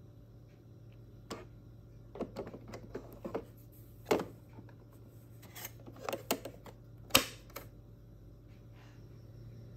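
Plastic clicks and knocks of an ink cartridge being pushed into a Brother MFC-440CN inkjet printer's cartridge bay and clicking into place: a scatter of light clicks, a louder knock about four seconds in and the sharpest snap about seven seconds in, over a low steady hum.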